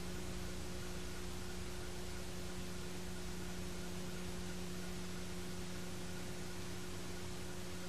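Steady hiss with a constant electrical hum underneath: the background noise of an old videotape recording, with no game sound standing out.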